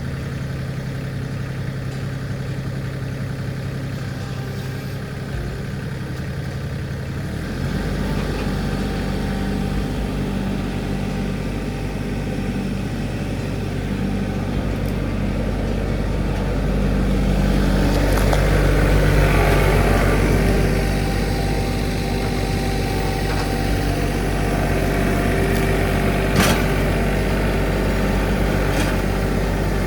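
Tractor engine running steadily. About seven seconds in it grows louder and deeper, and a single sharp knock comes near the end.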